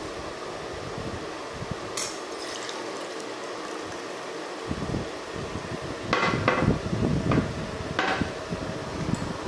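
Water poured from a plastic jug into a steel tumbler, followed by a few sharp clinks and knocks of tableware on the table in the second half.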